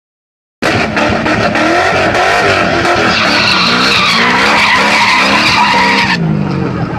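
LS V8 engine revving hard with its pitch wavering while the rear tyres spin and squeal in a burnout. The tyre noise stops about six seconds in and the engine note carries on.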